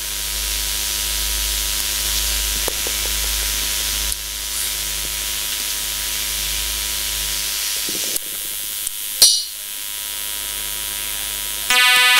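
Steady hiss with a faint electrical hum and a low, wavering rumble, broken by a few sharp clicks. Music starts just before the end.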